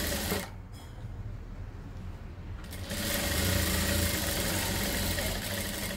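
Industrial sewing machine stitching through fabric. It stops about half a second in, leaving only a low hum, and starts stitching steadily again a little under three seconds in.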